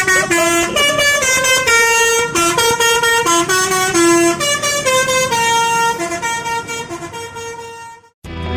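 Bus telolet basuri multi-tone air horn playing a quick tune of clear held notes that step up and down in pitch. It cuts off abruptly near the end, and loud rock music starts right after.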